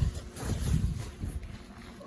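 Wind buffeting the microphone in uneven low rumbling gusts, strongest about a second in.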